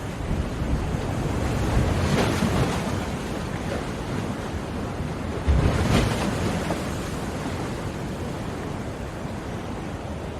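Ocean surf: waves breaking and washing ashore, one swelling up about two seconds in and a sharper, louder break about five and a half seconds in, then an even hiss of wash.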